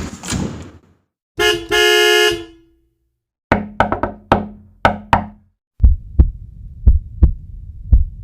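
A run of stock sound effects: a brief noisy burst, then a car horn honking twice, short then long, then a quick series of sharp knocks, and finally a heartbeat thudding in lub-dub pairs about once a second.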